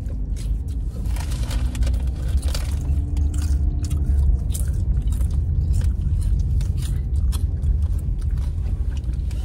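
Potato chips crunching as they are bitten and chewed, a run of short crisp cracks, over a steady low rumble of the car's cabin.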